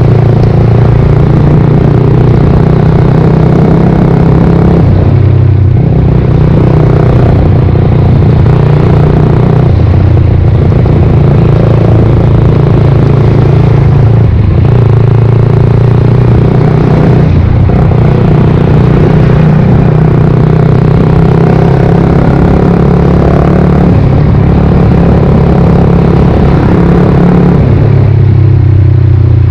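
Suzuki GSX-R125's single-cylinder engine running loudly under way, its note dipping briefly and shifting pitch several times, as with throttle changes and gear shifts while riding.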